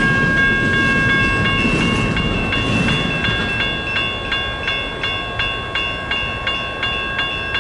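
Railroad grade-crossing warning bell ringing in an even beat of about three strokes a second, over the steady rumble of a double-stack intermodal freight train rolling past.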